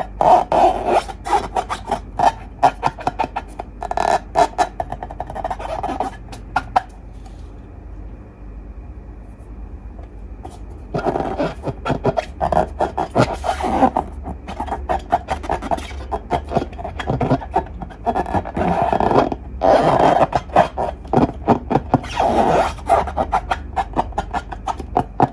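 Slime being worked by hand or stirred, giving rapid sticky clicking and crackling in bursts, with a lull of a few seconds about a third of the way through.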